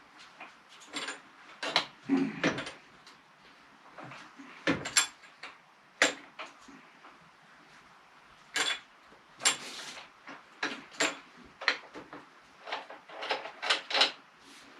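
Irregular metallic clicks, knocks and clinks of hand tools and fork parts being worked as a rebuilt front fork leg is fitted into a Honda Trail CT110, some strikes ringing briefly.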